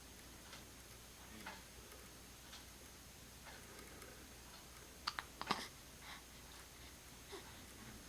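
A pet's hiccups: a quick run of three sharp catches about five seconds in. Underneath is faint, steady ticking about once a second.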